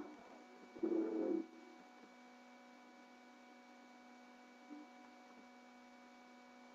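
Faint steady electrical hum made up of several thin steady tones, from a webcam microphone and speaker setup. About a second in, one short muffled sound rises briefly above it.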